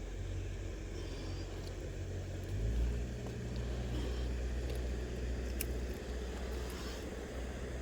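Steady low engine hum of a motor running in the background, growing louder about two and a half seconds in, with a few faint clicks.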